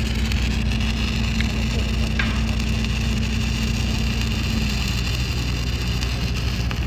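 Welding arc running steadily: a continuous crackling sizzle over a steady low machine hum, with the arc breaking off right at the end.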